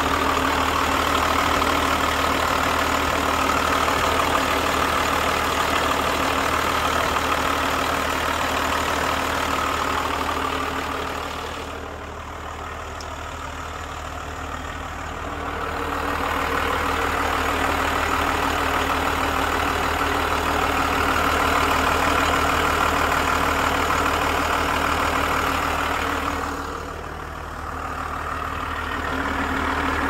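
1996 Ford B800 school bus turbodiesel engine idling steadily with the hood open, its sound dipping briefly quieter twice.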